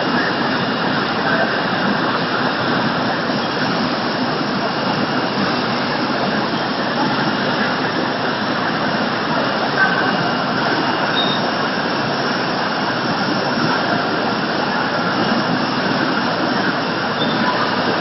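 Machinery of an automatic poultry slaughter and processing line running: a loud, steady mechanical noise without breaks.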